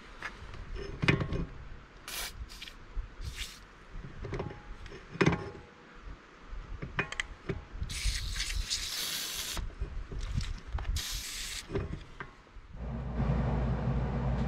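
PB Blaster penetrating oil hissing from an aerosol can onto ATV rear brake caliper bolts that won't turn: three short spurts a couple of seconds in, then two longer sprays later, with clicks and knocks of hands and metal between. Near the end a steady low hum takes over.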